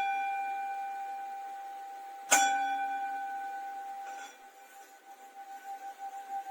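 Tibetan singing bowl struck and ringing, one steady pitch with a higher overtone, slowly fading. It is struck again about two seconds in. Near the four-second mark the ring drops away, and the same tone builds again with a regular pulsing waver.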